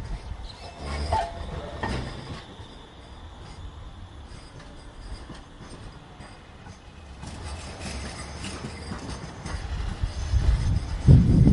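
Tram running on its rails: a few knocks and a short squeal from the wheels in the first couple of seconds, then a quieter rumble that grows louder toward the end.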